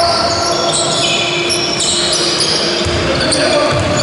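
Basketball game in a large echoing sports hall: sneakers squeaking sharply on the court floor many times over, and the ball thudding on the floor a couple of times near the end.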